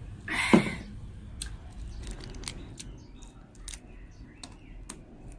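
Cooked crayfish shells being cracked and peeled by hand: scattered sharp clicks and crackles. About half a second in, a short loud breathy vocal sound falls in pitch.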